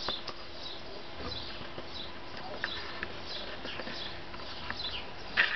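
Puppies yipping faintly, short high yips repeating every second or so, with a louder burst of yelping near the end.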